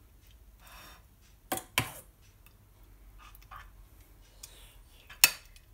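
A metal spoon clinking against a glass baking dish as béchamel sauce is spread over its bottom: two light clinks about a second and a half in and a sharper one near the end, with faint scraping between.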